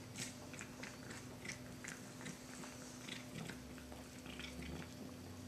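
A cat chewing pieces of fish: faint, irregular wet clicks and smacks of its mouth and teeth, over a steady low hum.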